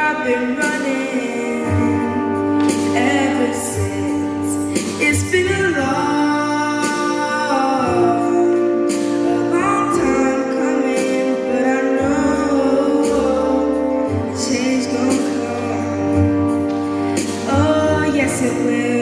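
Music with singing: a sung melody over instrumental accompaniment, holding and sliding between notes.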